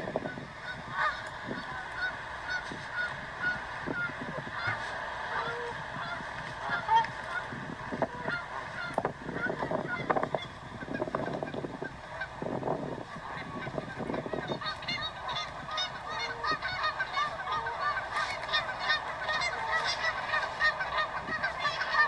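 A flock of waterbirds calling: many short, overlapping calls repeated over and over, growing denser near the end.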